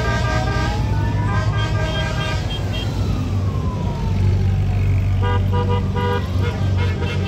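Honda Gold Wing motorcycles passing in a procession, engines giving a steady low rumble. Over them a wailing siren sweeps slowly down and up, and horns toot near the start and again about five seconds in.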